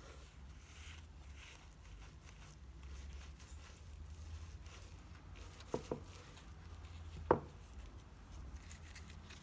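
Hands rolling and pressing a kimbap roll on a wooden board: soft rubbing of the seaweed sheet against the wood over a low steady hum. Two quick light knocks come a little before six seconds in, and a sharper knock about a second later.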